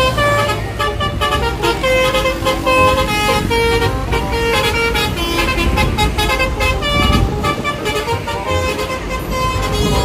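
Multi-tone "telolet" bus horn playing a quick tune of short stepping notes over the bus's running engine.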